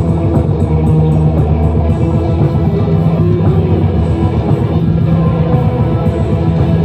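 A metal band playing live and loud: distorted electric guitars over bass and a drum kit, without a break.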